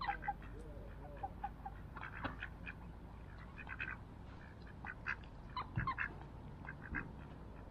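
Mallard ducks quacking: short calls in scattered clusters of a few at a time.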